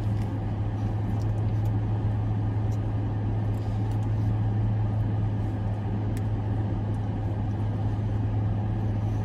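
Steady low hum of a car idling, heard inside the cabin, with a couple of faint clicks.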